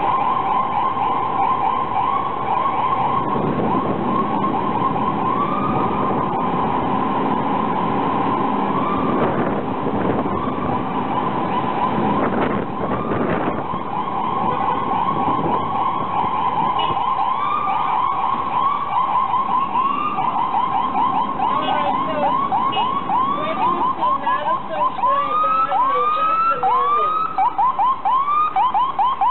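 Ambulance siren sounding continuously, changing from slower rising-and-falling sweeps to a rapid yelp about halfway through, with a couple of slower sweeps near the end. Road noise sits underneath in the first half.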